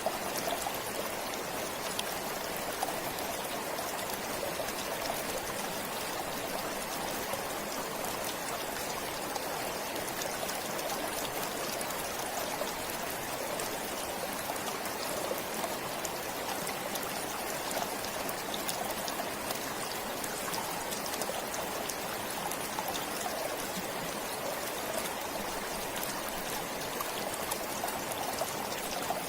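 Forest stream flowing steadily: an even, unbroken rush of water.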